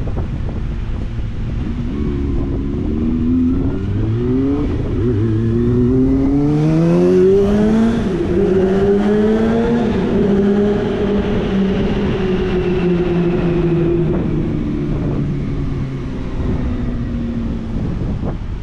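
Sport motorcycle accelerating hard up through the gears, its engine note climbing and dropping back at each of about four upshifts, then holding a high note that slowly falls away.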